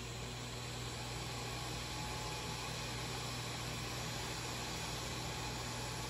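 Hot-air rework gun blowing steadily, a constant hiss with a low hum underneath.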